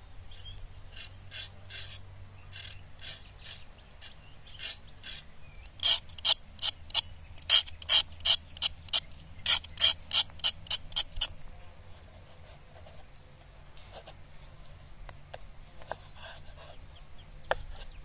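Raw carrot being scraped with a hand vegetable peeler: a run of short rasping strokes, sparse at first, then about three a second, stopping about eleven seconds in, followed by a few faint taps.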